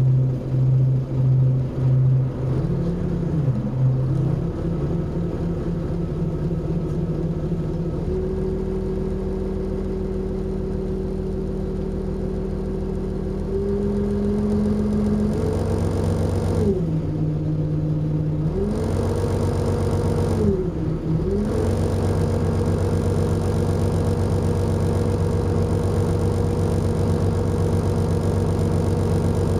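Volvo Olympian double-decker bus's diesel engine heard from inside the bus, pulsing at a low note for the first couple of seconds, then running steadily under way. Its pitch steps up twice and, past the middle, twice falls and climbs back.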